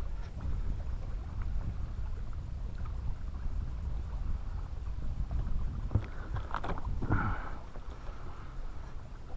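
Steady low rumble of wind and water around a small aluminium jon boat, with a short burst of clicking and rattling about six seconds in.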